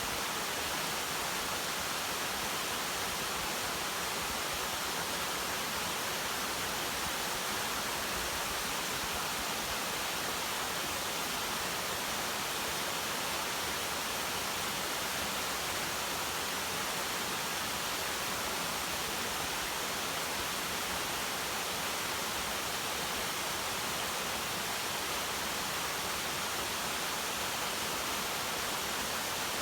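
Waterfall with a heavy flow of water, its falling water making a steady, even rush.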